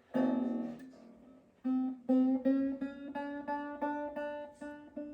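Banjo strings sounding together at the start, then one banjo string plucked over and over, about three times a second, while it is being tuned up to pitch.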